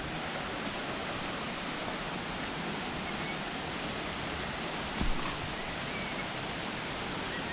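Steady rushing of river water, with a brief knock about five seconds in.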